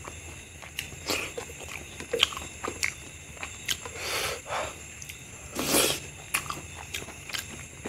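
Close-miked eating by hand: wet mouth smacks and chewing of mutton curry and rice, with bites and sucks at meat on a mutton bone, two longer, louder slurps about four and nearly six seconds in.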